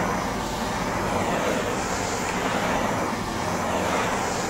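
Handheld gas torch burning with a steady rushing hiss, its flame played along the cracked cut in a sheet of laminated glass to heat it until the glass flexes open at the cut. The noise rises and falls slightly.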